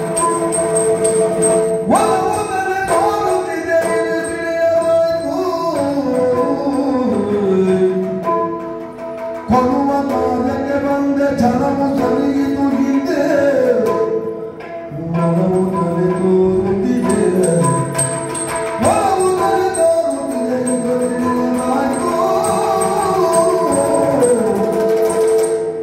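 Yakshagana music: a male Bhagavata singing gliding melodic phrases over a steady drone, with hand-drum accompaniment. The singing pauses briefly twice, about nine and fifteen seconds in.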